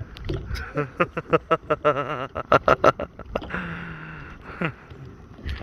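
Men laughing in a rapid run of short bursts, then a drawn-out vocal sound near the end.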